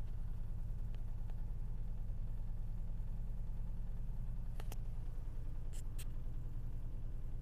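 Car engine idling with a steady low rumble and a fast, even pulsing, the unexplained knock and vibration at idle. A few sharp clicks come a little past the middle.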